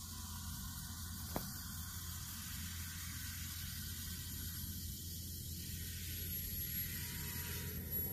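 Kingtech model jet turbine of a radio-controlled Viperjet, heard as a faint distant hiss over a low rumble, with a thin high whine coming in about five seconds in and growing slowly louder as the jet lands and rolls out at low throttle. A single short click about a second and a half in.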